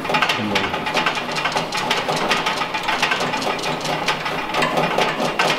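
Metal height-adjustment handle of a gas grill being turned on its threaded lift mechanism, making a fast, steady run of rattling clicks.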